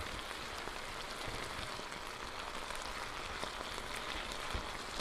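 Stir-fry vegetables in a thin sauce simmering in an electric skillet: a steady, even sizzle with small crackles.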